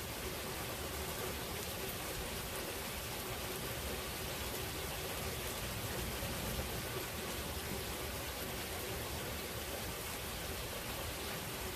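Steady thunderstorm rain falling: an even, unbroken hiss of rain with fine scattered drop ticks.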